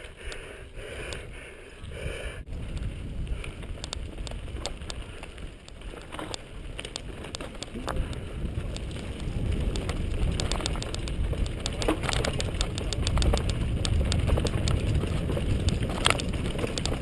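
Mountain bike ride on a dirt trail heard from an on-board camera: wind rumble on the microphone and tyres on dirt, with rapid rattling clicks from the bike over bumps. It grows louder through the second half as the ride speeds up.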